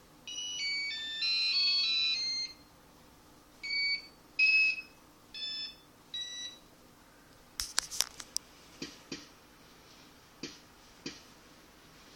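Electronic beeping tones from a homemade interactive sound box, jumping up and down in pitch as a hand moves nearer to and farther from its ultrasonic range sensor: a long run of quick-changing notes at first, then short separate blips. In the second half come a number of sharp clicks and taps.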